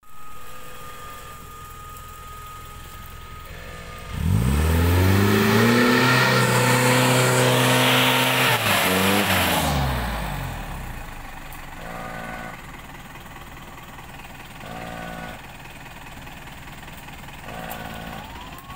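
Off-road 4x4's engine revving hard for about six seconds, the pitch climbing steeply then falling back, before it drops to idle with a few short throttle blips.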